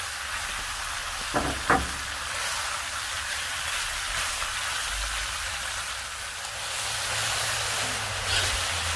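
Skirt steak strips with sliced peppers and onions sizzling steadily in a hot Weber cast iron wok over charcoal. Metal tongs click twice against the wok about a second and a half in.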